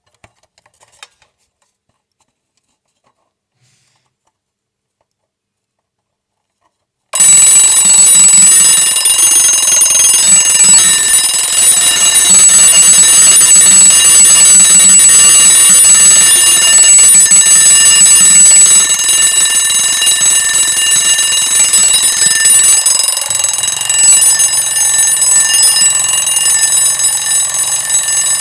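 Vintage Italian mechanical alarm clock: a few faint clicks, then about seven seconds in its bell starts ringing loudly and keeps ringing without a break.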